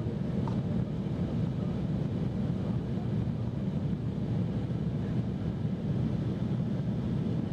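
Cabin noise of a jet airliner in flight, heard from inside at a window seat: a steady low rushing drone that does not change.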